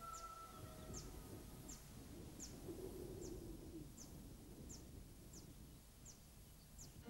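Faint outdoor ambience: a small bird repeating a short, high, falling call about every three-quarters of a second, over a low rumble.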